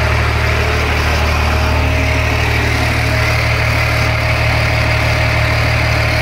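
LMTV's Caterpillar 3116 inline-six turbo diesel idling steadily at low idle, with a steady hiss and a faint thin whine over the engine note.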